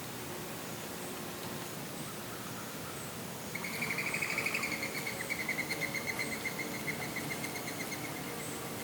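A long, rapid trill, an animal call of fast even pulses with a slight downward drift in pitch, starting about three and a half seconds in and running for about five seconds. Under it is a steady outdoor hiss with faint, high, regularly repeated ticks.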